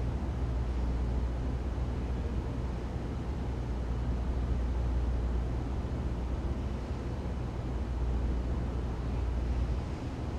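Ventilation system running: a steady fan hiss over a deep, constant low rumble.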